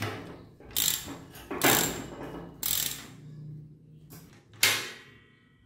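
Ratchet wrench clicking in several separate strokes as a socket turns a bicycle's rear axle nut.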